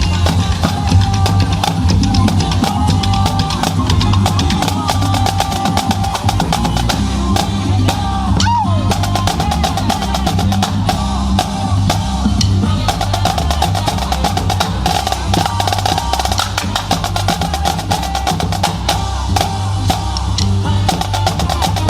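Drum-heavy music: fast, dense snare and bass drum strikes with drum rolls over a strong, steady bass.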